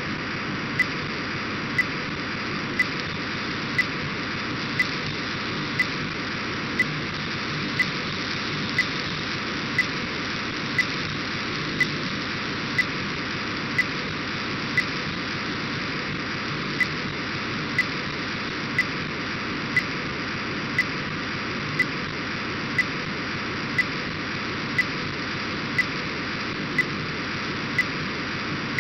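Demodulated audio from an RTL-SDR receiver tuned to an Orbcomm satellite downlink near 137 MHz: a steady, even hiss of the data signal as it is being decoded, with a sharp click about once a second.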